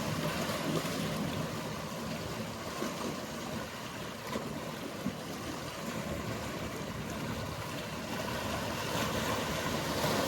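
Sea water washing steadily against the shore, with the low hum of motorboats running in the background.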